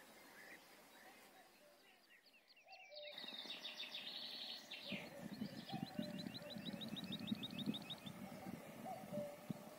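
Cows chewing and tearing grass close up, a dense low crunching that starts about five seconds in. Small birds chirp throughout, with a quick run of chirps about three seconds in.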